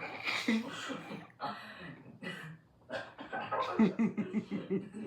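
A person laughing: breathy bursts at first, then a quick run of short voiced laughs near the end.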